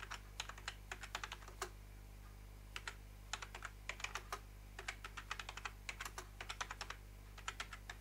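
Typing on a computer keyboard: quick runs of key clicks, with a pause of about a second near the start.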